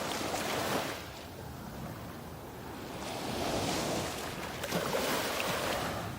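Sea waves washing onto a sandy beach. One surge fades about a second in, and another builds from about three seconds in and ebbs near the end.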